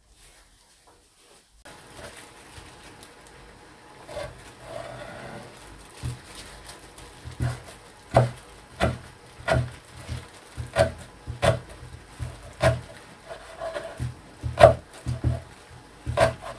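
Kitchen knife chopping kimchi on a wooden cutting board: sharp knocks of the blade striking the board, loosely regular at about one to two a second, starting about six seconds in.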